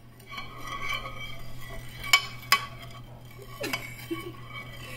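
A metal spoon stirring liquid gelatin in a glass baking dish, scraping along the glass, with sharp clinks against the dish, two of them about two seconds in.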